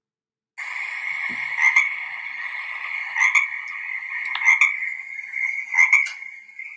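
Frogs croaking: a steady chorus of calls with four louder croaks standing out, about one every second and a half, cutting off suddenly at the end.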